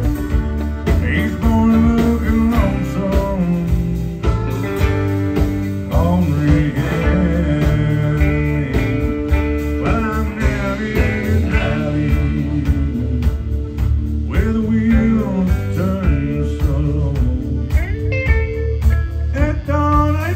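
Live country band playing a song: guitars, bass and drums, with a man singing and lead lines that bend and slide in pitch.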